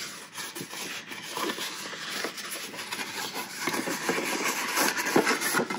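Cardstock being handled and slid against cardstock: irregular rustling and light scraping with small taps.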